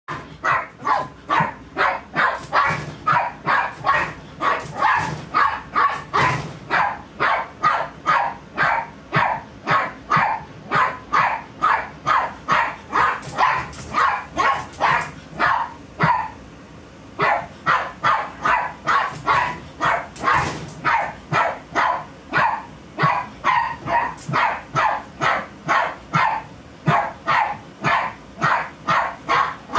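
A small long-haired dog barking over and over in an even rhythm, about two sharp barks a second, with one short pause just after halfway.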